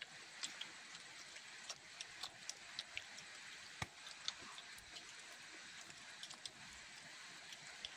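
Faint outdoor ambience with scattered short, sharp ticks and clicks, about one or two a second, over a light steady hiss.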